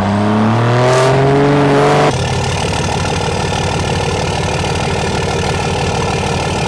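Pickup truck engine accelerating, its pitch rising for about two seconds, then a sudden cut to a steady, rapidly pulsing engine sound.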